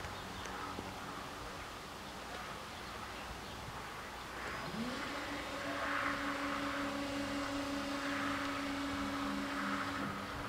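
Electric drive motor of an EBÜT 80 level-crossing barrier starting up with a short rising whine about halfway in, then running at a steady pitch as the boom lowers and cutting off near the end, when the boom is down. A low steady hum lies underneath throughout.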